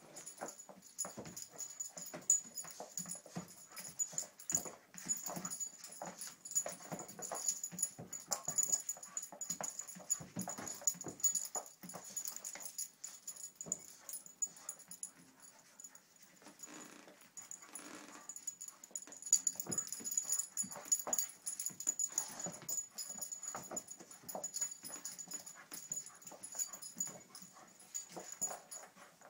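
Boston terrier–boxer mix dog playing hard with a ball on a rug: a busy, irregular run of knocks and scuffles from paws and toy, mixed with the dog's breathing and a short whine about two-thirds of the way through.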